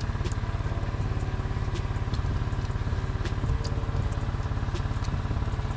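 A small engine running steadily at idle with a fast, even pulse, with scattered faint clicks over it.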